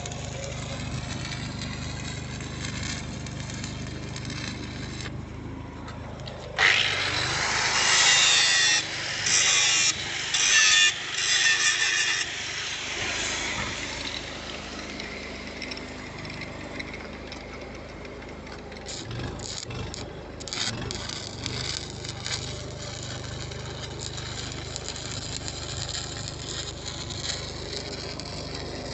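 An engine runs steadily throughout, with several loud bursts of hissing, crackling arc welding from about seven to twelve seconds in, each starting and stopping abruptly.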